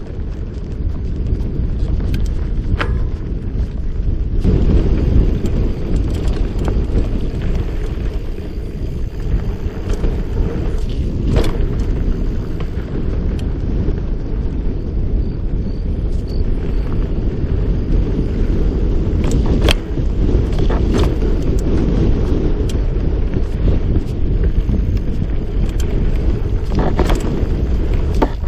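Mountain bike riding a dirt singletrack, heard from a camera on the bike: a loud, steady low rumble of wind buffeting the microphone and tyres rolling on dirt, with scattered sharp clicks and rattles from the bike over bumps.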